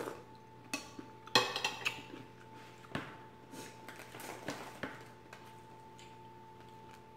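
A metal spoon clattering against a ceramic plate and bowl as it is set down, the loudest sound, about a second and a half in. Then a few soft crackles as a loaf of crusty bread is torn apart by hand.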